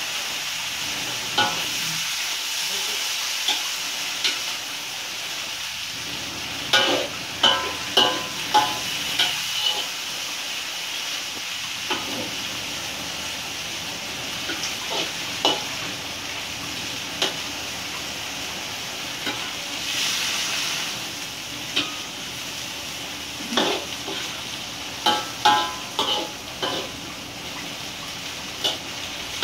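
Water spinach sizzling in a hot wok, with a spatula scraping and clanking against the wok as it is stir-fried. The clanks come in two flurries of stirring, about seven seconds in and again near the end.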